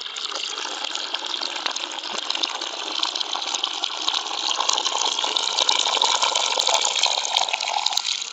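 Water running in a steady gush, as if filling a container.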